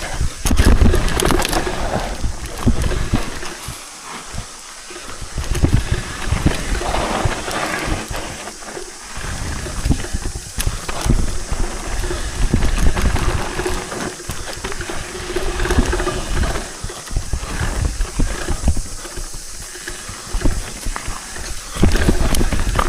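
Mountain bike riding down a rough dirt trail: tyres rumbling over the ground, with frequent knocks and rattles from the bike over bumps and wind noise on the action camera's microphone.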